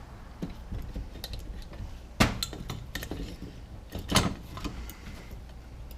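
Small metallic clicks and clinks of hand tools working a stuck brass screw out of an old Holley four-barrel carburetor, with two sharper knocks, about two seconds in and about four seconds in.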